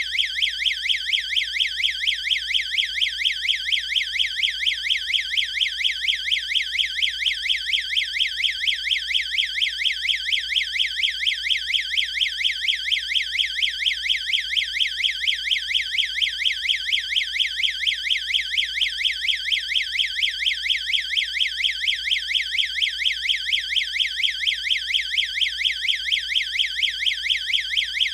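Electronic strobe alarm's sounder going off continuously: a loud, fast warbling tone that sweeps up and down several times a second without a break.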